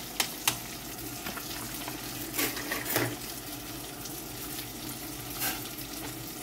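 Salmon frying in a pan with a steady sizzle, while a fork stirs pasta in a steel saucepan, scraping and clicking against the pot a few times.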